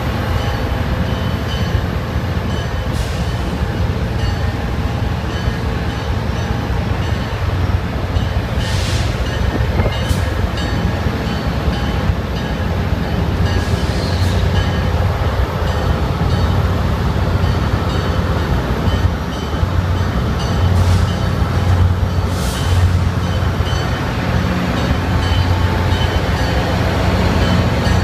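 MBTA commuter rail diesel locomotive of the kind called a "Screamer" running loud as it departs, a steady low engine drone with a high pitched whine on top. Several short hissy bursts come and go, and the engine grows a little louder in the second half.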